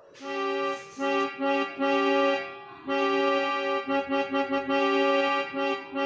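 Yamaha electronic keyboard sounding a held chord in horn-like blasts, imitating the horn of an Indian Railways WDM-3D diesel locomotive. Several long blasts, with a quick run of short blasts about two-thirds of the way in.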